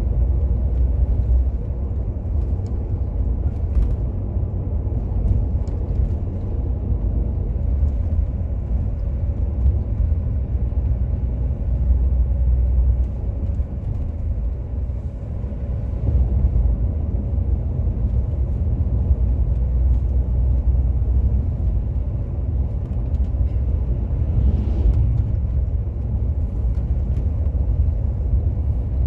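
Steady low rumble of a coach running along a wet highway, heard from inside at the front of the bus: engine and tyre noise with no change in pace.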